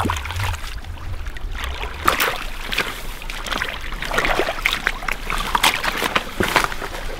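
Mud, sticks and water splashing and sloshing in irregular strokes as a rubber boot and a stick break open a beaver dam.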